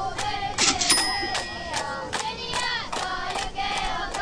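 Crowd of spectators, many high voices shouting and cheering at once without a break, with a short sharp burst of noise under a second in.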